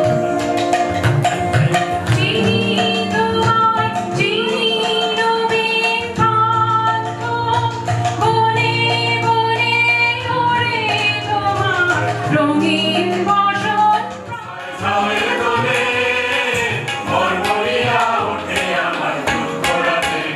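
Live Indian song: a woman singing the melody over a harmonium's held chords, with tabla strokes keeping the rhythm. After a brief drop about three-quarters of the way through, the sound thickens as more voices join in.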